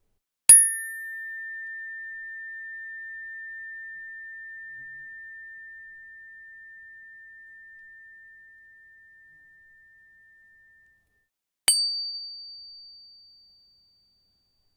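Two metal tuning forks struck one after the other. Each strike starts with a sharp metallic click and rings a single pure tone: the first, about half a second in, fades slowly over about ten seconds; the second, a higher tone near the end, dies away within a couple of seconds.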